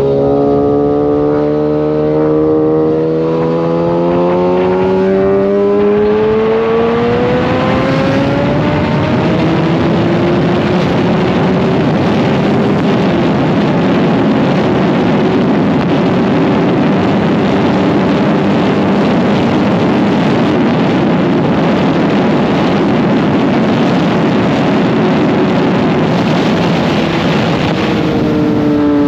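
Kawasaki inline-four sport bike engine accelerating hard, its pitch climbing steadily for about nine seconds, then holding at speed under a heavy rush of wind noise.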